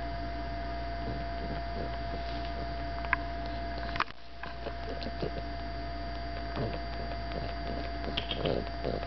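Pug suckling on a plush toy: faint, scattered wet smacks and snuffly mouth noises over a steady low hum, with a sharp click about four seconds in.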